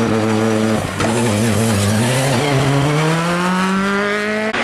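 Rally car engine under hard acceleration: the note breaks off briefly about a second in, then rises steadily in pitch as the car pulls away.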